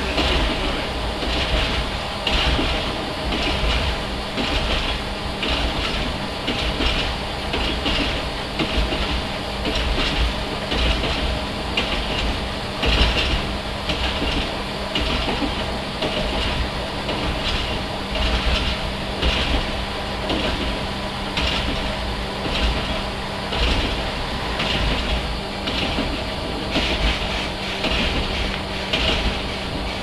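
NOHAB 100 series diesel railcar running along the line: a steady engine drone with a regular clickety-clack from the wheels over the rail joints.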